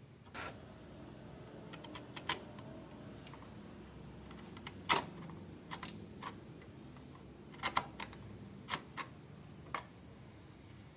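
Irregular light clicks and taps, about a dozen, as hard objects are handled. The loudest comes about five seconds in and a quick cluster near eight seconds, over a faint low hum.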